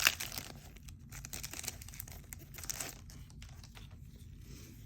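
A 1990 Score football card pack being torn open: a sharp rip right at the start, then the wrapper crinkling and crackling as it is pulled off, settling to quieter handling of the cards after about three seconds.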